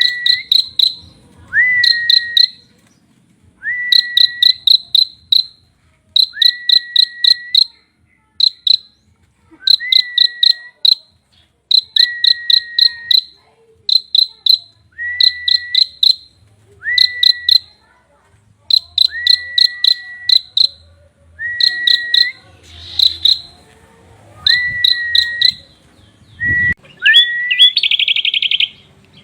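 Prinia (prenjak) singing a repeated phrase about every two seconds: a short rising whistle held steady, with a quick run of five or six sharp, high, insect-like notes. Near the end it breaks into a denser buzzy trill.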